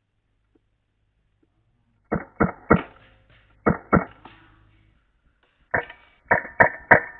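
Music starting after about two seconds of silence: a few sharp, pitched percussive hits, then an even beat of about three hits a second from about six seconds in.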